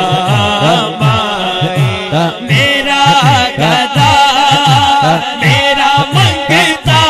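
A man singing an Urdu naat, a devotional song, into a microphone over a loudspeaker system, in a long melodic line. Under the voice runs a deep beat whose pitch falls with each stroke, about three strokes a second.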